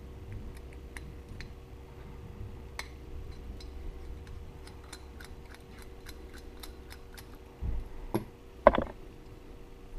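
Small flathead screwdriver turning out the pilot jet of a Mikuni carburetor: faint, irregular metal clicks and ticks as the blade works the jet, with a couple of louder knocks near the end.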